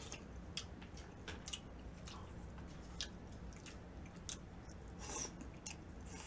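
Mouth sounds of eating udon noodles: chewing with small wet clicks and smacks, and a short noodle slurp about five seconds in.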